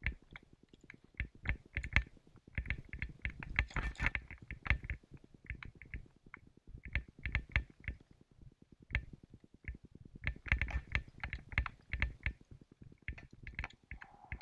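Bicycle rattling and clattering as it jolts over rough grass: a steady jumble of irregular knocks, clicks and thumps.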